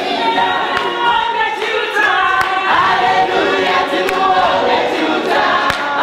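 Many voices singing together in chorus: a church congregation singing as a group.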